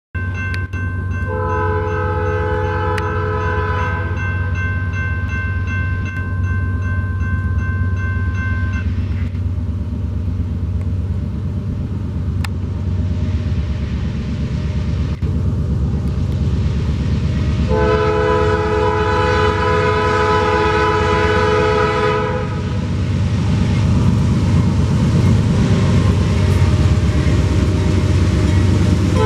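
Norfolk Southern freight diesel locomotives rumbling steadily as they come up to a grade crossing, the lead unit's multi-chime air horn sounding a long blast from about a second in, with part of the chord lingering until about nine seconds, and a second long blast at about eighteen seconds.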